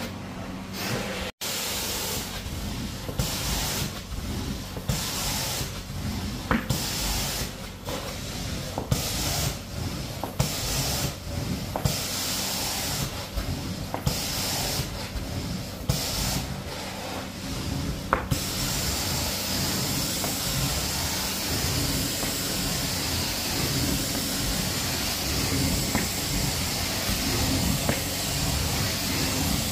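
Carpet-cleaning extraction wand hissing, its spray and suction cutting in and out in short strokes about once a second, then hissing steadily from about two-thirds of the way in.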